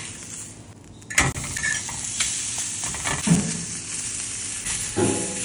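Thick steak searing on a hot flat iron griddle, sizzling steadily after a sharp slap about a second in as the meat lands. A few clinks and scrapes come from a metal fork turning it.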